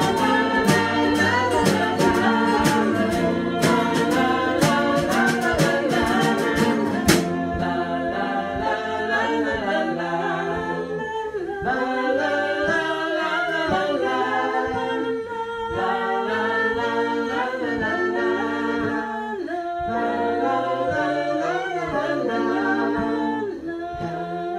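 A group of voices singing a song together, over guitar strumming that stops about seven seconds in, leaving the voices singing unaccompanied.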